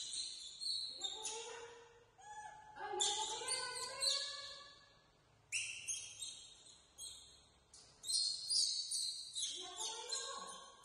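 Infant macaque crying out in a string of shrill, high-pitched squeals and whimpers, some sliding down in pitch, with short pauses between bouts.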